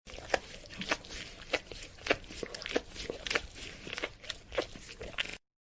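A dog licking: a run of wet smacking licks at a steady pace of a little under two a second. The sound cuts off suddenly about five seconds in.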